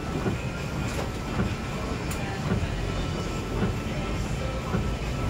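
Steady rumble of a moving vehicle, with scattered short knocks and rattles.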